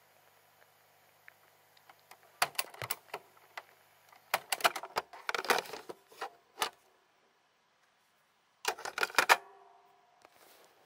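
Sharp mechanical clicks and clatter in three bursts, about two and a half, five and nine seconds in. A faint hum stops partway through.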